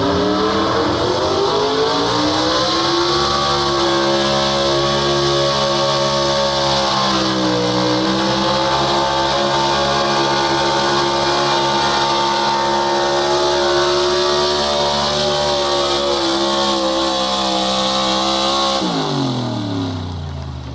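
Pro Stock 4x4 Chevrolet pulling truck's engine at full throttle dragging a weight-transfer sled: the revs climb over the first few seconds, hold high with a brief dip about seven seconds in, then fall sharply near the end as the driver lets off at the end of the pull.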